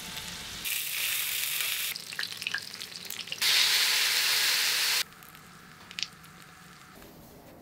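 Hot oil sizzling in pans as breaded cutlets and chicken fry, in a few cut-together clips. The loudest, hissing stretch comes in the middle, as sauce is poured into a hot cast-iron pan of chicken and fried tofu, and cuts off suddenly. A softer sizzle with one sharp pop follows.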